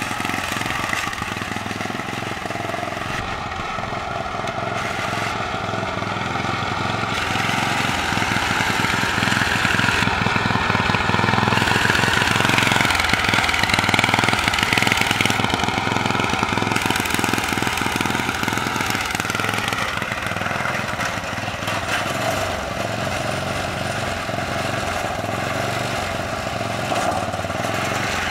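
Small engine of a riding lawn mower converted into a drag racer, running steadily as it is driven around, growing louder toward the middle and easing off later.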